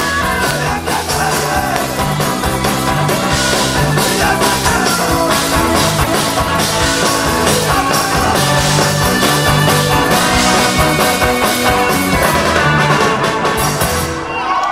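Live rock band playing loud, with keyboards, trumpet and electric guitar over a full band.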